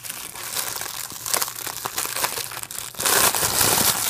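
Clear plastic bag crinkling and crackling as hands work it open, getting louder about three seconds in.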